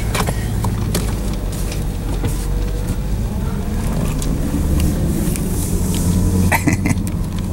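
Vehicle engine running steadily, a low even hum with a few scattered clicks and knocks over it.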